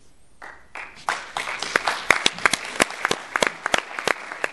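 Audience applauding, starting about half a second in and filling out within another half second, with a few sharp single claps standing out above the rest.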